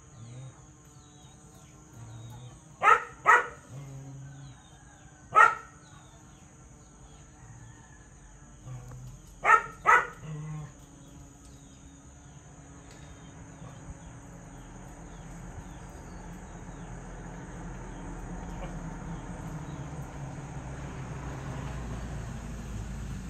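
A dog barking five times: a quick double bark about 3 seconds in, a single bark near 5 seconds, and another double bark about 10 seconds in. A steady high insect buzz runs beneath, and a low rumble grows louder through the second half.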